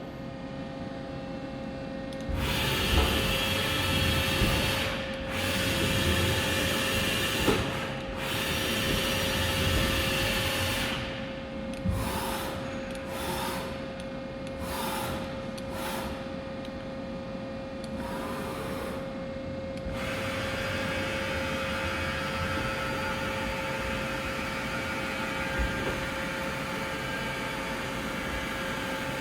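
Doosan PUMA 400LB CNC lathe running, with a steady whine throughout. Loud hissing comes and goes in stretches for about the first twenty seconds, then settles into a steady hiss.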